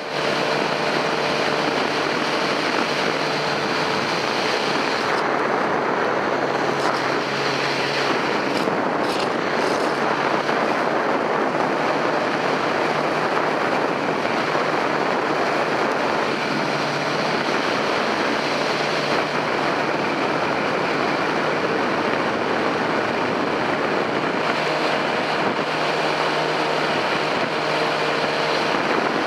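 Steady rush of wind and road noise on a camera riding on a sport motorcycle at highway speed, with the engine's even drone underneath at a steady cruise.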